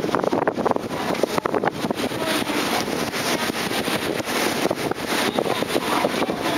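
Wind buffeting the microphone on the open deck of a moving ferry: a steady rushing noise with constant gusty rumbles, over the wash of the ship underway.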